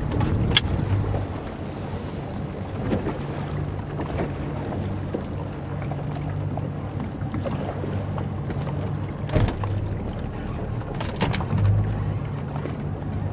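Motorboat engine idling with a steady low hum, with a few sharp knocks about half a second in and again twice near the end.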